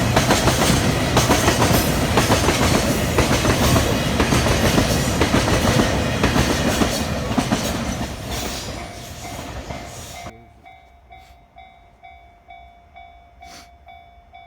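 Freight train passing over a level crossing, its wheels clattering over the rail joints, while the crossing's warning bell rings in a steady repeating pattern. The train noise fades and then drops away suddenly about ten seconds in, leaving the bell ringing, with one click near the end.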